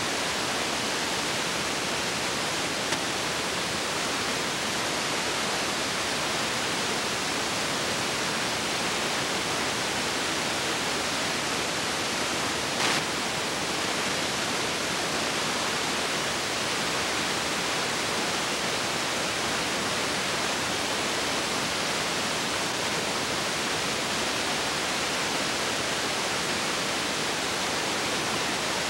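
Steady, even hiss with no other sound, the noise floor of a soundtrack-less old home-movie transfer; a faint click about thirteen seconds in.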